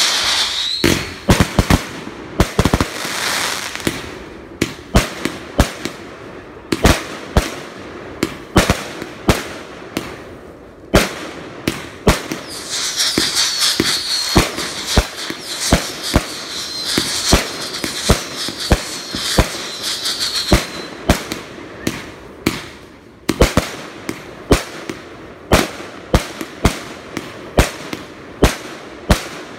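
Aerial fireworks going off in rapid, irregular succession: sharp bangs and pops, several a second at times, with crackling in between. From about thirteen seconds in, a high wavering whistle runs for some eight seconds over the bangs.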